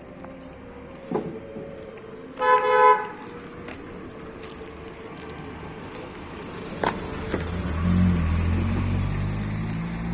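Street traffic: a vehicle horn gives one short honk about two and a half seconds in, then a motor vehicle's engine rumble builds up near the end as it passes close by.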